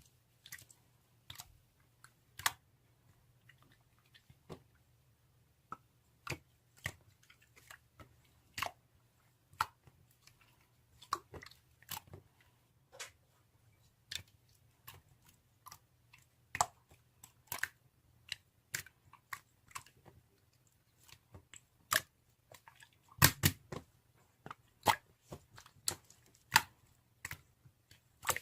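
Irregular sharp clicks and crunches, a few a second at most, with a quick cluster about three quarters of the way through, over a faint steady low hum.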